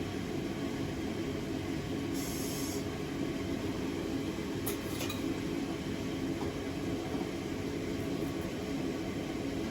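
Steady roar of a gas torch flame, with a brief hiss about two seconds in and a couple of light metallic clicks about five seconds in.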